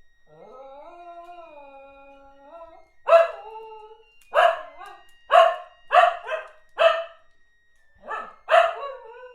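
Dog 'singing': one long howled note that rises, holds and rises again for about three seconds, then a run of about eight loud, short barks, some coming in quick pairs.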